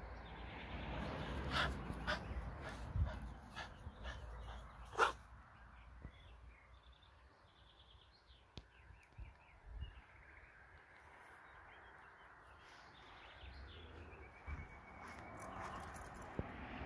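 A small long-haired terrier barking a few short, sharp barks in the first five seconds, the last one the loudest; after that it goes quiet.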